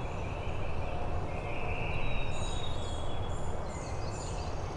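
A wild turkey gobbler gobbles about two seconds in, over songbirds singing in the woods and a steady low rumble.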